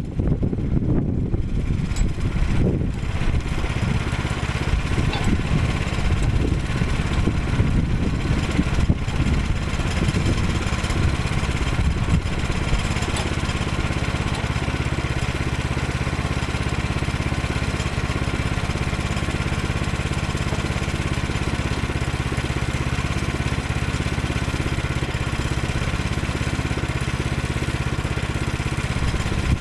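Gasoline engine of a Woodland 122 portable sawmill running steadily. The sound is uneven for the first dozen seconds or so, then settles into an even drone.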